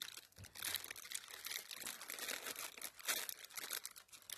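Dry leaves and twigs rustling and crackling, with irregular crunches.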